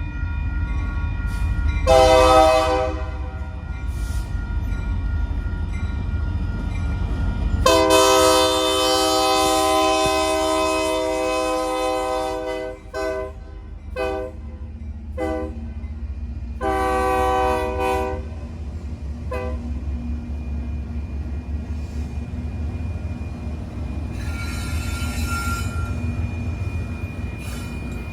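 Locomotive air horn played as a horn show: a short blast, then a long held blast, then a run of short toots and another blast, over the low rumble of the train.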